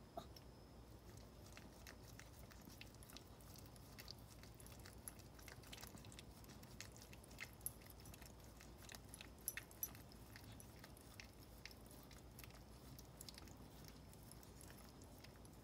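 Maltese mother dog licking and nibbling her newborn puppy to clean it after birth: faint, irregular wet clicks and smacks.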